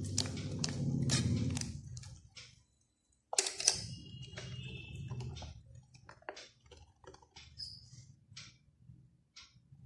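A hand squelches and squeezes a runny tamarind and ground-coconut gravy mixture in a steel bowl, with a few quick strokes over the first second and a half. After a brief lull come scattered light clicks and ticks, over a low steady hum.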